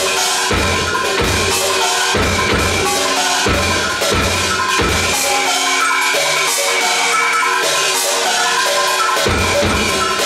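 Solo percussion music: fast, dense strokes on several pitched percussion instruments with ringing tones, over deep drum strokes. The deep strokes drop out about halfway through and return near the end.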